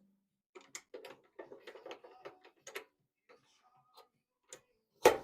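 Small metal tooling being handled on a lathe: a quick run of light clicks and rattles, a few scattered ticks, then one sharp knock near the end.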